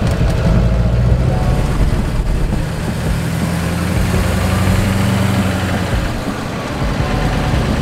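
Duramax turbo-diesel engine in a Humvee running while driving, heard from inside the cab: a steady low engine note with road noise, its pitch shifting slightly a few seconds in and again near the end.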